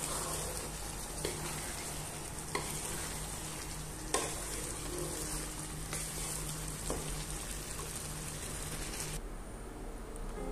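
Chana dal and mutton sizzling as they fry in a wok, stirred with a wooden spatula that knocks against the pan a few times. The sizzling cuts off abruptly near the end.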